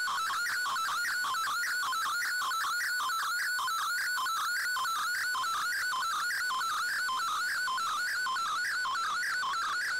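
Shortwave digital-mode picture transmission (MFSK image) received on an Icom IC-R8600: a single warbling tone that wavers up and down around a mid pitch in a quick, repeating pattern at a steady level, as the pixel data of an image is sent.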